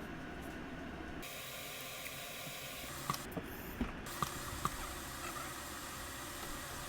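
A few short light clicks and knocks from a freshly oiled shop stool's mechanism as it is worked, over a steady hiss.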